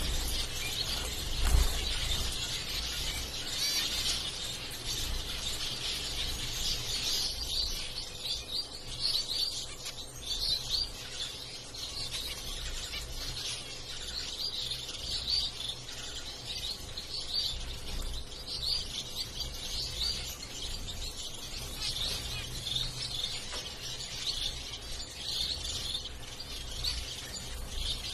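Caged zebra finches calling, a busy, continuous chatter of short high chirps and beeps from many birds, with one low thump about a second and a half in.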